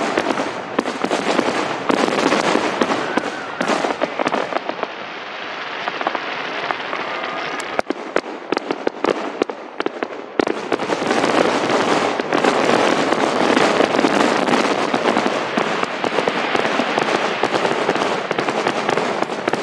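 Aerial fireworks bursting: a dense, continuous crackle with many sharp bangs. It thins to a few separate cracks about eight seconds in, then builds up dense again.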